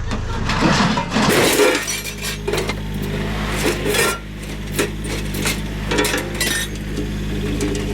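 Metal scrap clanking and clattering in a run of sharp knocks, over a tractor engine running steadily, its pitch dropping about a second and a half in.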